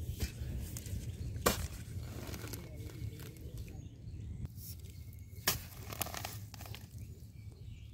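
Hands digging into wet mud and pulling out clods of soil, with crumbling, scraping handling noise and two sharp knocks, one about a second and a half in and one about five and a half seconds in.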